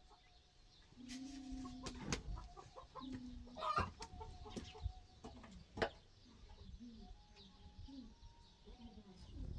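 Chickens clucking with short drawn-out calls, broken by a few sharp knocks, the loudest about four and six seconds in.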